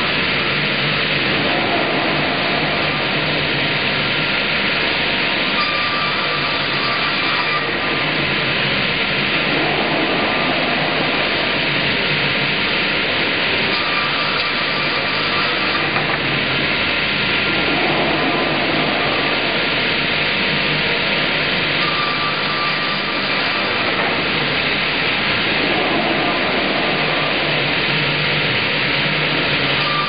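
Automated double-bladed circular sawmill running and sawing a log, a loud steady saw and machine noise that swells about every eight seconds.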